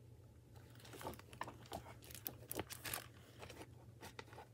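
Faint crinkling and crackling of a hardback picture book's plastic library jacket as the book is handled and turned, a quick irregular run of light crackles starting about half a second in.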